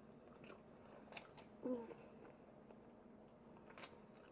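Faint chewing with a few soft, short clicks of someone eating, otherwise near silence.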